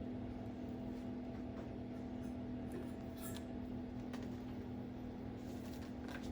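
Steady electrical hum of room tone holding one low tone, with a few faint short rustles and ticks scattered through it.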